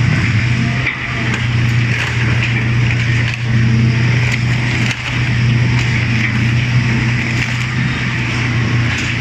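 M&J 4000 waste shredder's cutter shafts turning and tearing up mixed plastic and rubbish. A steady low drive hum runs under frequent sharp cracks and crunches, with brief dips in level about one, three and a half and five seconds in.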